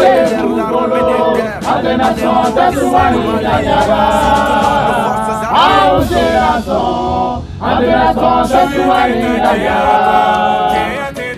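A small mixed group, a woman and several men, singing a song together without instruments, with a brief break about seven and a half seconds in.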